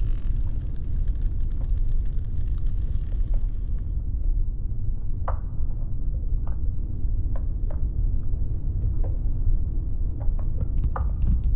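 Glacier ice sounds: a deep, continuous rumble with scattered sharp cracks and pops every second or so. A faint hiss drops away about a third of the way in.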